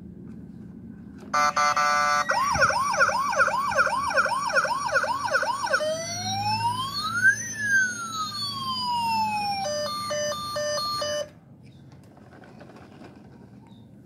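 Toy fire truck's electronic siren, starting about a second in: a short steady tone, then a fast warbling wail, then a slower sweep with one tone rising while another falls, then a quick two-tone beeping, cutting off suddenly about three seconds before the end.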